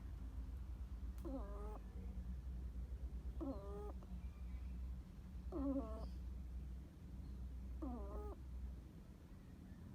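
Pet hedgehog snoring in its sleep: four short pitched snores about two seconds apart, each rising quickly in pitch and then holding, over a steady low hum.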